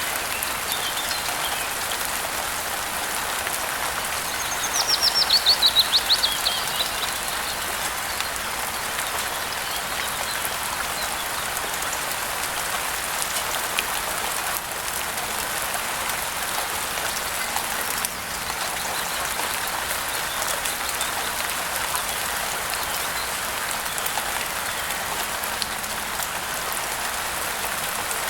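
Steady rain pattering down, with a bird's call about five seconds in: a quick run of about ten notes falling in pitch, the loudest thing here, and a few faint chirps near the start.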